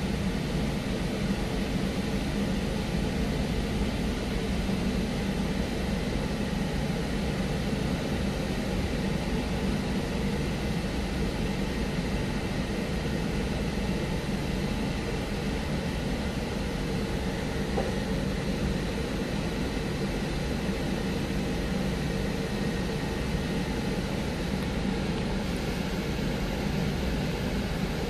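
Steady rushing roar of an automatic car wash's drying blowers, heard from inside a waiting car.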